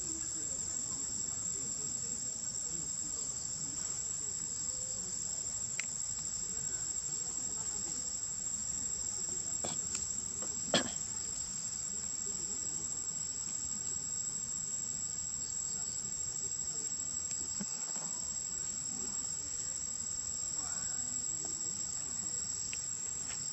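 Steady, high-pitched chorus of insects droning without a break. A single sharp click stands out about eleven seconds in, with a few fainter ticks elsewhere.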